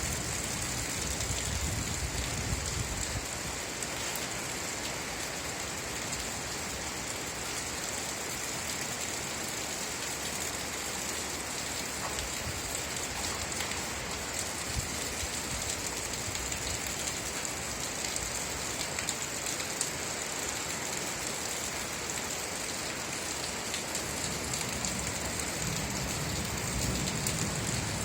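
Steady rainfall with many small drops pattering, a constant even hiss, and a low rumble near the start and again near the end.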